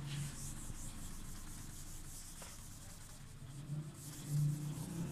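Whiteboard eraser rubbing across the board, wiping off marker drawing with a soft, scratchy hiss.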